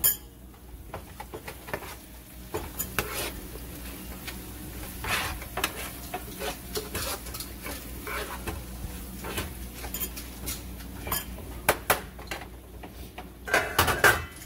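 A metal spoon scrapes and knocks against a non-stick frying pan as a thick pepper sauce is stirred. A light sizzle runs underneath, and there is a louder clatter near the end.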